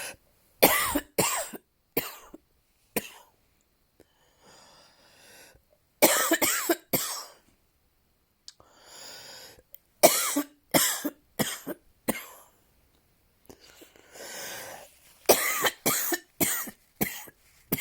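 A person coughing in four fits of several sharp coughs each, with short pauses between the fits.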